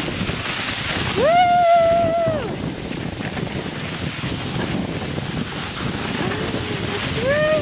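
Steady rushing, scraping hiss of a person sliding on their seat down a snow slope, mixed with wind on the microphone. About a second in, a voice calls out one long held 'whoo' that rises, holds and falls away, and near the end another wavering call starts.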